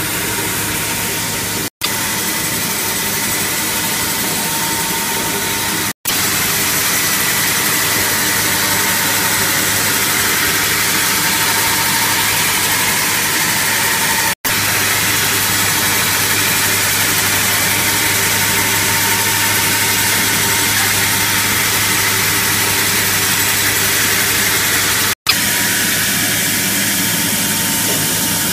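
MJ3371 log band saw running steadily and cutting through a wet hardwood log, a loud even hiss over a low motor hum, with water spraying on the cut. The sound drops out for a split second four times.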